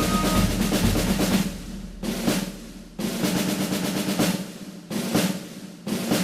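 Snare drum rolls: rapid strokes that start sharply about every two seconds and die away before the next one.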